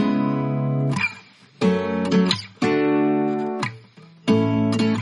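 Background music: an acoustic guitar strumming chords, with about four strums, each left to ring for a second or so.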